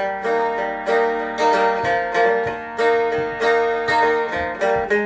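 Seagull Merlin M4 stick dulcimer with a spruce top, a steady run of picked single notes played as a diatonic melody over ringing drone strings. It has a punchy, banjo-like sound.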